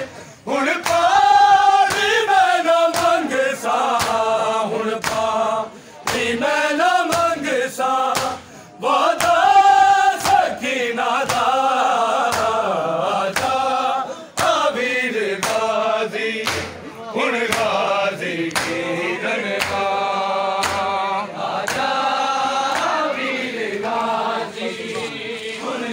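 A group of men chanting a Punjabi noha in unison, in phrases with short breaks between lines. Sharp slaps of matam, hands beating on chests, keep a steady beat under the chant, about one to two strikes a second.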